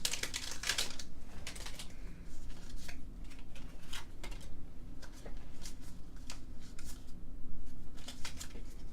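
A foil booster pack wrapper crinkling for about the first second, then scattered light clicks and rustles as the trading cards are handled.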